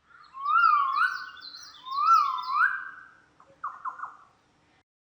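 A bird calling: two phrases of clear whistled notes that rise and fall in pitch, followed by a few short notes about three and a half seconds in.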